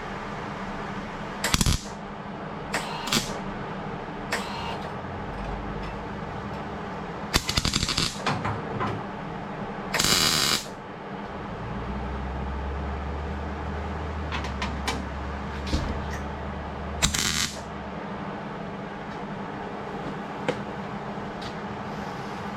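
Intermittent short bursts of metalworking noise over a steady shop hum: sharp clicks and crackles, a quick rattling run about eight seconds in, and a longer hiss-like burst about ten seconds in.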